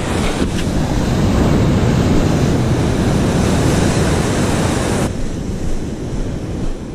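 Ocean surf breaking and washing in loud, steady rushing whitewater, with wind on the microphone. About five seconds in it drops suddenly to a quieter, even wash of waves.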